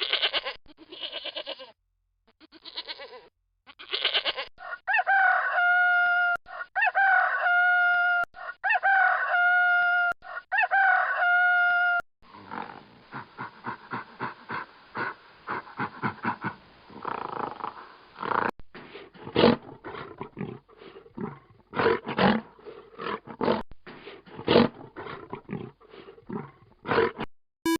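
Recorded animal calls one after another: a few short bleats, then four long, even calls about two seconds apart, then a long stretch of many quick, rough calls.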